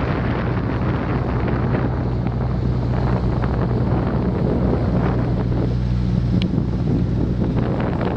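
A boat motor running steadily with a low hum, under heavy wind noise on the microphone.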